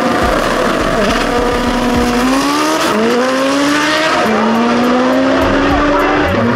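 Turbocharged drag car launching and accelerating hard down the strip, its engine note climbing and dropping back at two quick gear shifts, about three and four seconds in.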